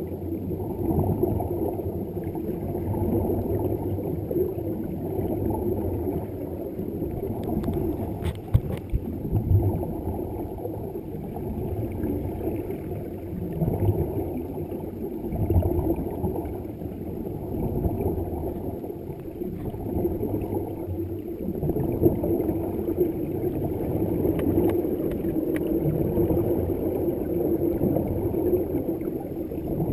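Muffled underwater rumbling and bubbling from divers' exhaled air, heard through an underwater camera's housing. It swells and eases every few seconds, with a few sharper bubbly bursts.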